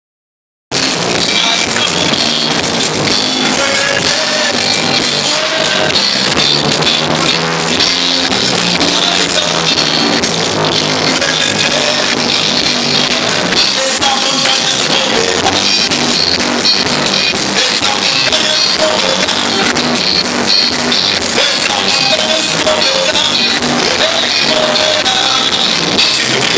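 Live worship band playing a song, with drum kit, other instruments and singing. It starts abruptly under a second in.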